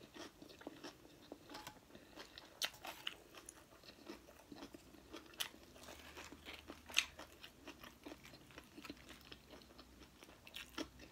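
Faint close-up eating sounds: chewing of seaweed-wrapped sushi, with irregular small crunches and mouth clicks, the loudest about 7 seconds in.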